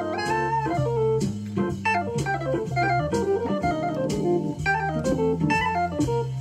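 AKAI EWI (electronic wind instrument) playing a fast jazz solo line over an organ-trio backing track of Hammond-style organ, bass and drums.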